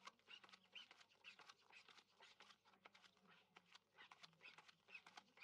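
Faint, quick slides and taps of playing cards being drawn from a card shoe and laid on a felt blackjack table, several a second.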